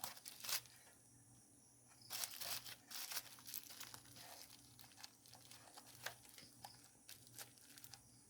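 Faint rustling and crinkling with scattered small clicks, busiest a couple of seconds in, as computer parts are handled while a hard disk is fitted to a desktop PC.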